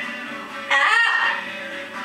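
Yellow-naped amazon parrot giving one loud call, about half a second long, starting about two thirds of a second in, over faint background guitar music.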